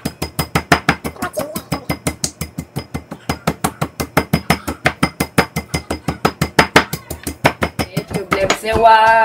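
A kitchen knife chopping rapidly on a cutting board, about six or seven even strikes a second, which stop shortly before the end as a voice speaks briefly.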